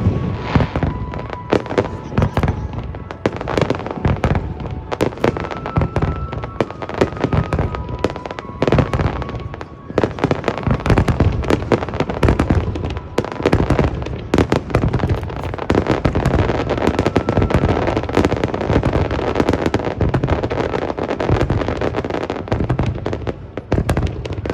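Aerial fireworks bursting in a dense, continuous barrage: many rapid bangs overlapping with crackling, with no let-up.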